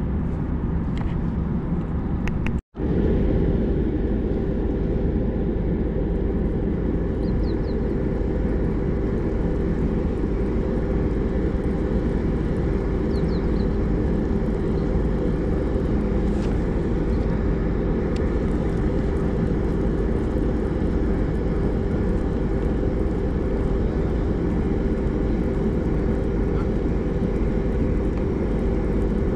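Steady low machinery rumble with a constant mid-pitched hum, cutting out completely for an instant about three seconds in.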